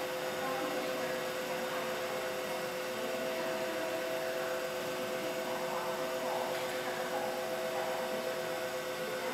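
Steady electrical hum with several held tones over a hiss, from the auxiliary equipment of an electric commuter train standing at the platform; one higher tone comes in about three seconds in and drops out near the end.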